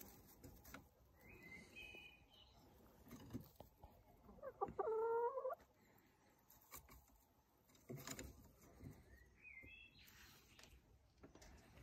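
Domestic hens clucking softly as they settle in the coop for the night: two short high chirps, one longer, louder call about four to five seconds in, and another short chirp near the end, with a few faint knocks.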